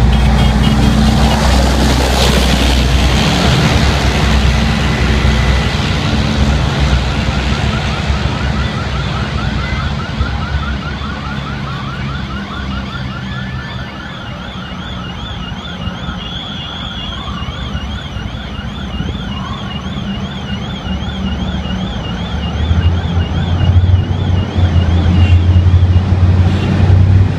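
Tank engines running loud as a tank passes close, the sound dying down mid-way and then building again as the next armoured vehicle approaches near the end. Over the quieter middle, a siren warbles rapidly up and down for about fourteen seconds.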